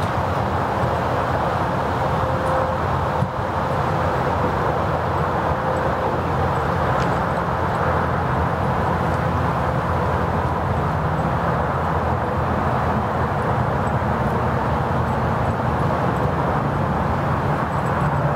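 An engine running steadily at idle, a constant low drone that does not change.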